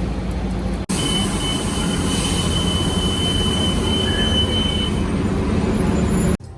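A large vehicle running, heard from aboard: a loud, steady rumbling with a thin high whine over it for a few seconds. The sound cuts off abruptly about a second in and again near the end.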